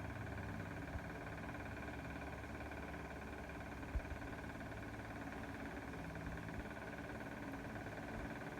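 Steady mechanical hum with a few held tones, and a single knock about four seconds in.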